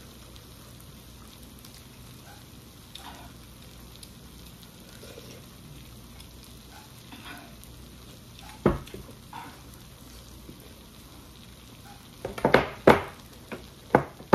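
Quiet eating sounds, soft slurps and chewing over soup and noodles, broken by a sharp clink of utensils on a stainless-steel bowl about nine seconds in and a quick run of clinks near the end.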